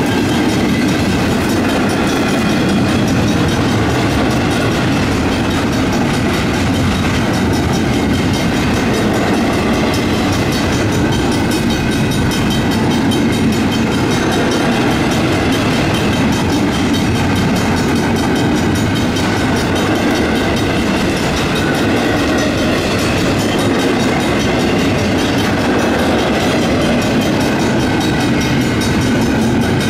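Union Pacific intermodal double-stack freight cars rolling past over the grade crossing: steady, loud wheel-and-rail noise with clickety-clack of the wheels over the rail joints. The crossing's Griswold mechanical bells ring on underneath.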